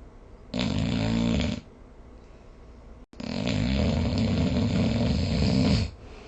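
Snoring: one snore lasting about a second, then after a short gap a longer snore of about two and a half seconds.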